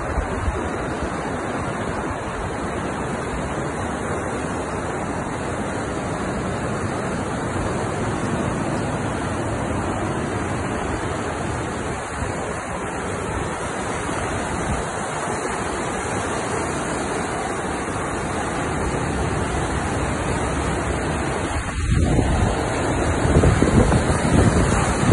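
Storm surf washing onto the beach, a steady rushing noise, with wind buffeting the phone's microphone. The buffeting gets stronger near the end.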